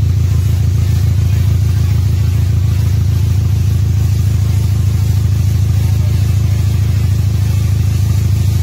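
Chevrolet Spark's four-cylinder petrol engine idling unevenly with a misfire. The mechanic traces the misfire to cylinders 2 and 3 and suspects their spark plugs.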